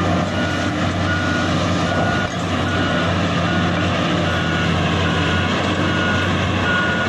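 Tata Hitachi hydraulic mining excavator's diesel engine running steadily as it travels on its tracks, with its travel alarm beeping a single tone a little more than once a second.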